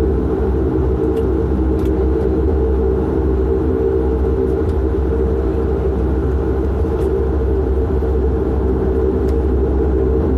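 Cabin drone of a Dash 8-400's Pratt & Whitney PW150A turboprop engines and propellers while the aircraft taxis: a steady low rumble with several steady tones on top, unchanging throughout.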